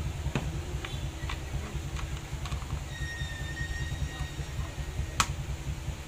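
Light clicks and taps of small parts being handled and fitted into the plastic motor housing of a dismantled Makita HR2470 rotary hammer, with a sharper click about five seconds in. A steady low hum runs underneath.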